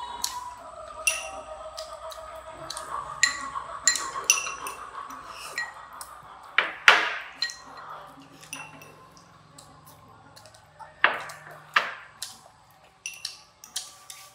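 Chopsticks and a spoon clinking against porcelain rice bowls and plates during a meal: a scattered run of sharp clinks with brief ringing. The loudest comes about seven seconds in, with two more near the end.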